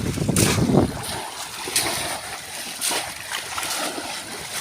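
Splashing in shallow flood water, heavier in the first second, then several separate short splashes.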